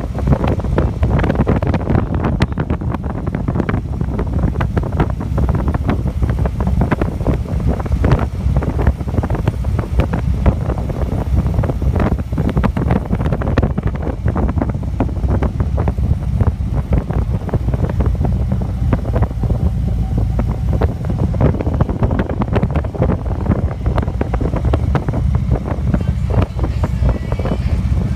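Wind buffeting the microphone over the steady road and engine rumble of a vehicle driving along a highway.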